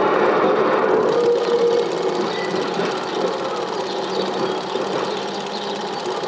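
Steady, rapid mechanical clatter, a little quieter after about two seconds.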